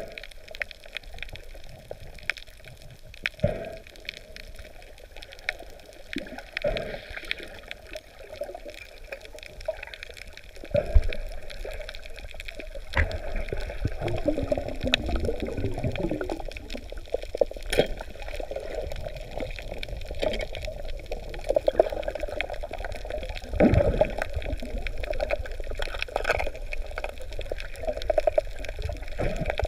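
Water and bubbling heard underwater, muffled, with many scattered sharp clicks; the water noise grows louder about eleven seconds in.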